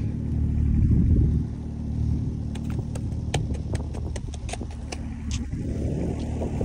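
Snowmobile engine idling steadily, with a scatter of sharp clicks through the middle.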